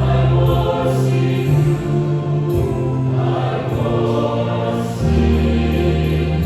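Mixed church choir singing held chords in harmony, the bass moving to a new chord about five seconds in.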